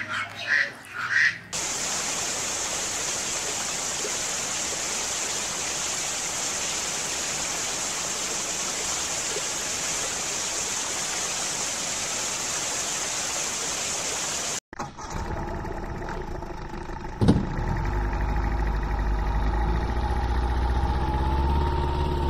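A few duck quacks, then a steady, even hiss for about thirteen seconds that cuts off suddenly, followed by a steady engine hum holding several fixed tones, with one sharp knock in the middle of it.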